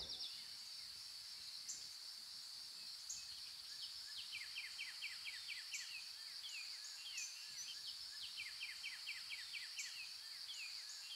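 Nature ambience: small birds chirping in quick runs of short, falling notes over a steady, high-pitched insect drone.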